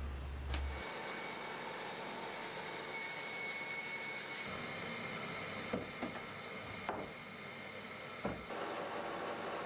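Scheppach HBS 300 bandsaw with a new blade, running steadily without load, with a few short knocks about two thirds of the way in.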